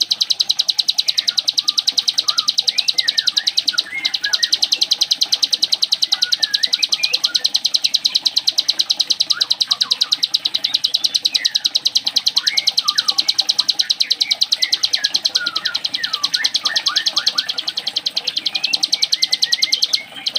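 Ciblek gunung (a prinia) singing a fast, continuous buzzing trill of rapid high notes, the 'sewing machine' style of song, with short chirping notes over it. The trill breaks off briefly about four seconds in and again just before the end.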